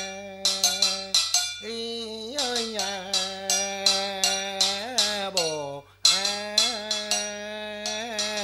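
A man chanting in the chầu văn style, holding long notes with slides between them, over sharp, clacking percussion strikes several times a second. The chant breaks off briefly for breath twice.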